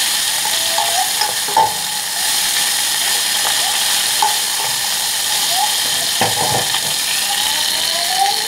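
Rice and browned vermicelli being stirred with a wooden spoon in hot ghee in a nonstick pot: a steady sizzle, with the spoon scraping and knocking against the pot, loudest about a second and a half in and again about six seconds in. The rice is being toasted in the fat before the water goes in.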